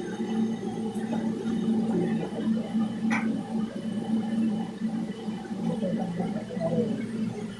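Steady low machine hum that warbles and pulses, with a water-like churning quality, and a single sharp click about three seconds in.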